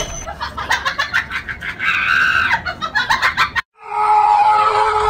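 A dog whining and yelping while it begs for food: a run of quick yelps and short whines, then after a brief break one long, steady whine.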